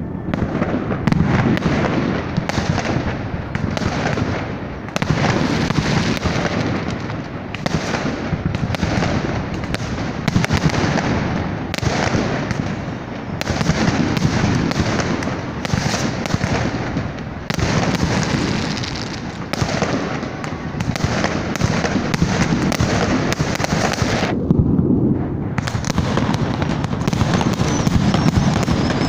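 New Year fireworks going off in a dense, continuous barrage: overlapping bangs and crackles of bursting aerial shells and firecrackers, with a brief lull about twenty-five seconds in.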